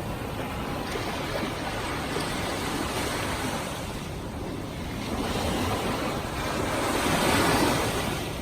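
Ocean surf washing onto a sandy beach: a steady wash of breaking waves that swells to its loudest near the end as a wave comes in, then eases off.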